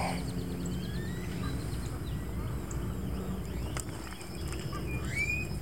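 A low wind rumble with faint bird calls over it: a quick trill of short chirps about half a second in and a single rising whistled note near the end, with one sharp click in the middle.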